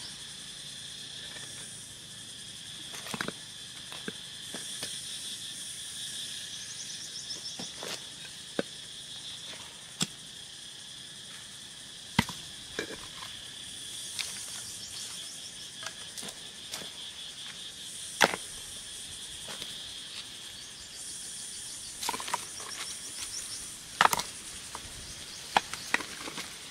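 Insects chirring steadily in several high-pitched bands. Scattered sharp knocks or clicks come every few seconds over it, and they are the loudest sounds.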